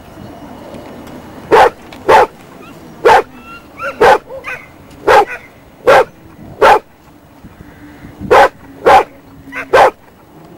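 Bearded collie barking repeatedly while herding sheep: about ten short, loud barks, one to two a second, with a brief pause around the middle.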